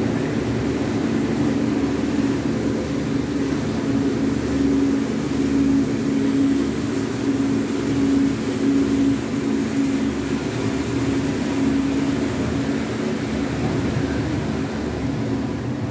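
Steady mechanical drone of a detachable gondola cable car, heard from inside the cabin as it runs along the cable through the station machinery, with a low humming tone that weakens near the end.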